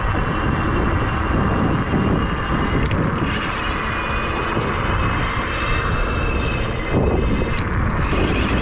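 Bafang BBS-HD mid-drive e-bike motor whining under power through its steel gear, the whine stepping up in pitch as the motor RPM comes back up, over heavy wind noise on the microphone.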